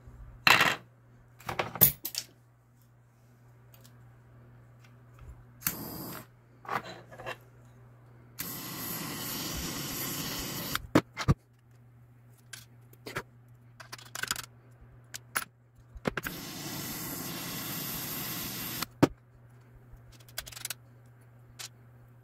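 Handheld butane torch burning twice with a steady hiss, each time for about two and a half seconds and ending with a sharp click, as it heats a 3D-printed plastic part with brass inserts. Around the bursts, small clicks and knocks of hard plastic parts and metal pieces being handled.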